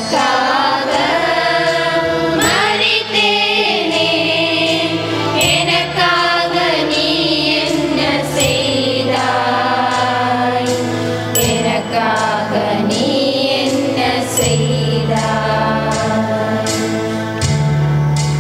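A small choir singing a hymn with electronic keyboard accompaniment, the keyboard holding long bass notes that change every few seconds under the voices.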